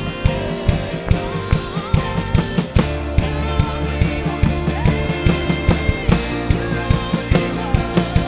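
Live worship band music: a drum kit keeping a steady beat under sustained keyboard and guitar chords, with some singing.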